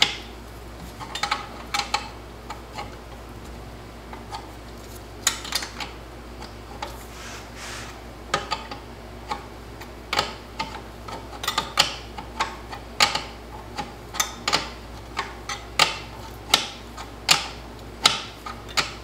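Ratchet wrench clicking in short strokes as a nut on a TH350 transmission case is worked loose. The clicks are sparse and irregular at first, then come about every half second to a second through the second half.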